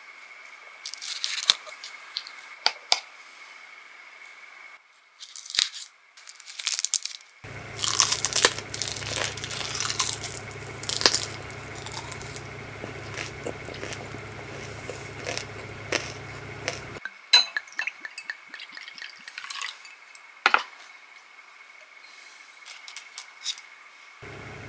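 Close-up eating sounds: crisp dried laver (gim) sheets crackling and crunching as gwamegi is wrapped and chewed, with scattered small clicks and wet squishes. The crunching is densest in the middle, between clean cuts in the sound.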